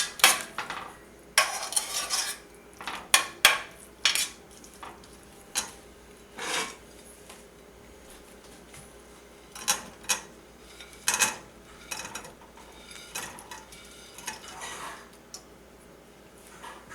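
A metal spoon scraping and clinking against a cooking pan as roasted bread pieces are stirred into a thick onion-tomato masala, in irregular strokes with short pauses.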